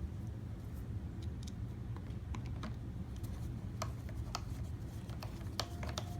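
Scattered light clicks and taps from handling parts, a few sharper ones near the end, over a steady low hum.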